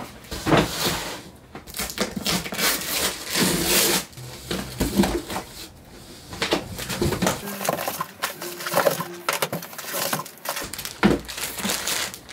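Unpacking a cardboard box: the box is set down and its flaps pulled open, then plastic-wrapped packages and small cardboard boxes are lifted out and stacked. Irregular rustling and crinkling of cardboard and plastic, with light knocks as items are put on the table.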